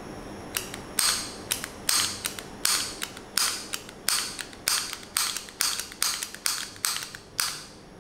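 Kemove P10 plastic switch puller tool being pushed in and released by hand over and over, giving about a dozen sharp plastic clicks. A softer click often comes just before each louder one, and the clicks come faster in the second half.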